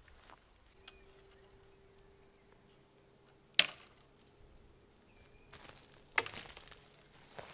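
A sharp knock about halfway through, then rustling scrapes and a second sharp knock near the end, like a tool or object striking wood or stone. A faint steady hum runs underneath.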